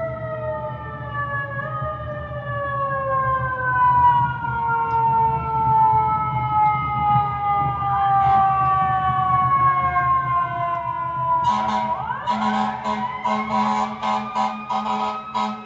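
Fire engine siren whose pitch falls slowly over about eleven seconds above a low engine rumble. About eleven and a half seconds in, a siren rises again and holds, joined by a rapid run of sharp pulses.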